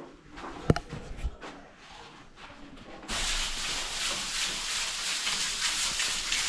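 A sharp click about a second in, then, about three seconds in, a steady rubbing, scraping hiss sets in abruptly and keeps going.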